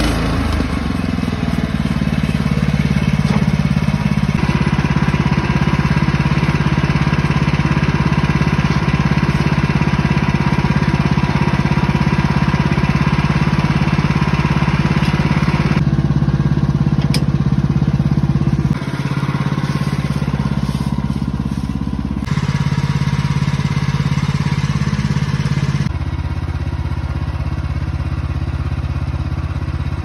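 Woodland Mills HM126 portable bandsaw sawmill running steadily, its small gasoline engine driving the band blade. The tone shifts abruptly several times, about halfway through and again near the end.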